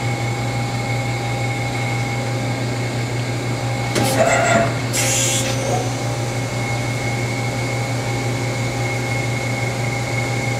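Doosan Lynx 220LM CNC turning center running a short test program: a steady hum with a constant high whine, a brief whirring burst about four seconds in, and a short hiss about a second after it.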